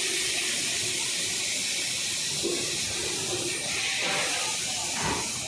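A steady, loud hiss that holds its level, with some faint knocking and clatter underneath it.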